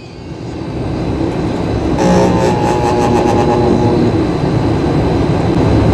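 Split-type air conditioner outdoor unit running with a loud, steady mechanical hum. The hum builds over the first two seconds, and a few steady whining tones join it about two seconds in.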